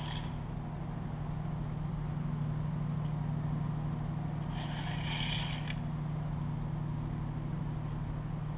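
Car ferry's engines making a steady low drone, with a short higher hiss about five seconds in.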